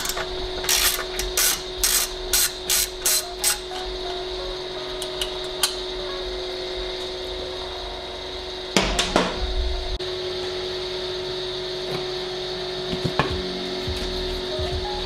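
Socket ratchet backing out a motorcycle seat-bracket bolt: a quick run of about eight clicks in the first few seconds. A steady hum runs underneath, and a louder clatter comes about nine seconds in.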